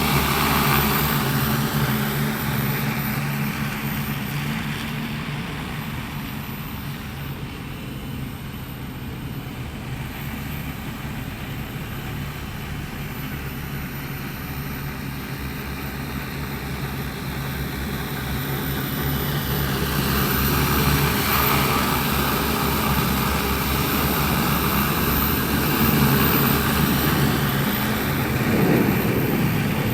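15-litre crop-spraying drone's rotors humming in flight, growing fainter through the middle as it moves away, then louder again with the pitch gliding as it comes back past.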